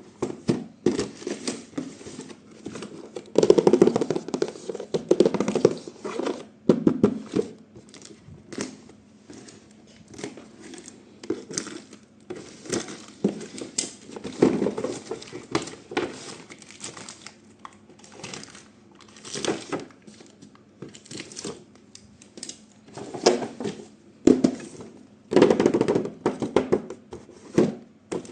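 Packaging being handled by hand, crinkling and tearing in irregular bursts as a toy is unboxed, loudest a few seconds in and again near the end.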